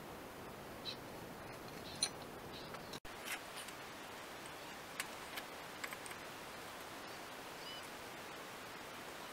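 Small metallic clicks and clinks, a few seconds apart, as steel parts are handled on a steel welding bench and jig, over a faint steady hiss.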